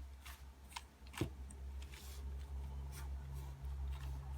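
2x2 Rubik's cube being turned by hand through an algorithm: a quick string of light plastic clicks and scrapes as the layers snap round, about two a second, over a faint steady low hum.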